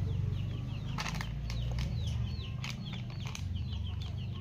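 Birds chirping: many quick, short, high chirps in rapid succession, over a steady low hum, with a few sharp clicks.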